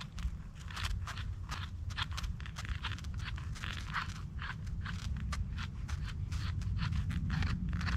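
Knife scraping and crunching at a freshly picked Boletus mushroom to clean it, in quick, irregular strokes several times a second, over a steady low rumble.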